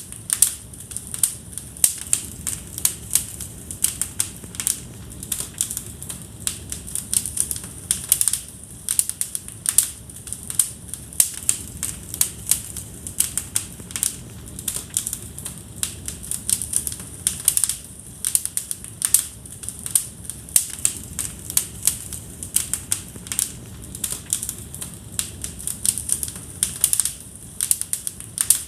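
Wood fire crackling in a fireplace: dense, irregular sharp snaps and pops over a low, steady rumble of the flames.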